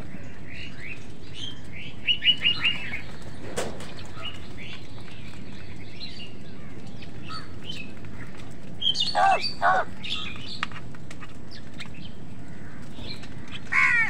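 A flock of house crows calling while they feed: a quick run of four calls about two seconds in, two louder calls around ten seconds, and another near the end. There is also one sharp tap a little after three seconds.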